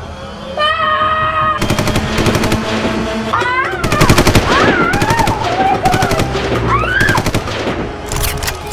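Rapid machine-gun-style fire, about eight shots a second, in two long bursts, with rising and falling whistling tones over it.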